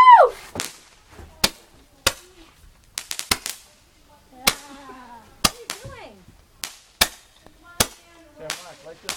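Handheld Roman candles firing, a sharp pop roughly every second as each ball shoots out, with a quick cluster of pops about three seconds in.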